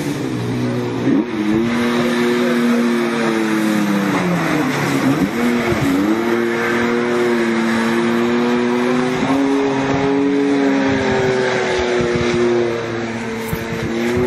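Snowmobile engine running hard under load, its pitch sagging over a few seconds, then jumping back up about five seconds in and holding steady at high revs before easing off slightly near the end.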